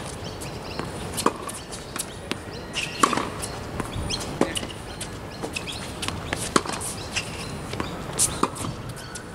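Tennis ball struck with a racket during backhand groundstroke practice on a hard court, a sharp hit every second or two, with fainter ball bounces in between.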